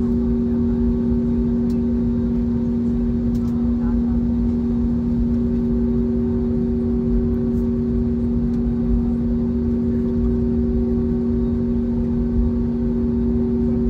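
Steady cabin noise of an Airbus A320neo with its engines running: a constant hum of two steady tones over an even low rumble.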